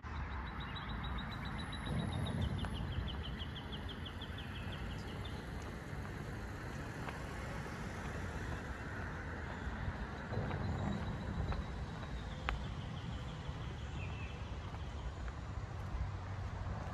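Outdoor ambience: a steady low traffic hum that swells twice as vehicles pass, with a bird's rapid high trill repeating in the trees during the first few seconds and again later.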